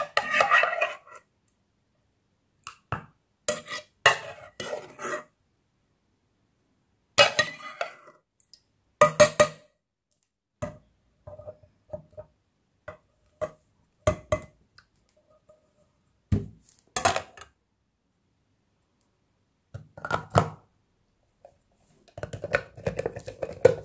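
Scattered clinks and knocks of kitchen containers and utensils being handled, some with a short ringing note, separated by silent gaps.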